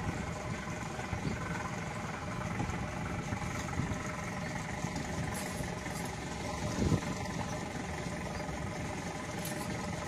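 A boat's engine idling steadily, with a single dull thump about seven seconds in.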